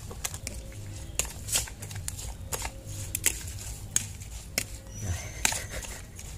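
A metal spoon tossing sliced green oleaster fruit in a plastic bowl: irregular clicks and knocks of spoon and fruit against the bowl.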